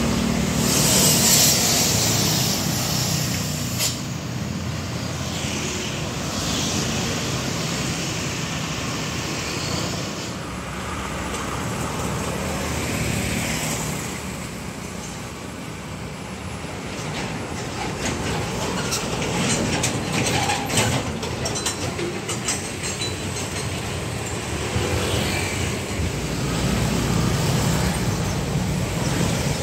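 Road traffic going past: a light box truck's diesel engine and tyres at the start, motorcycle engines in between, and a Hino truck's diesel engine growing louder as it drives by near the end.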